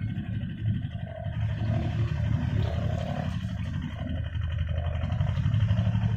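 Ocean waves: a steady low rumble of surf.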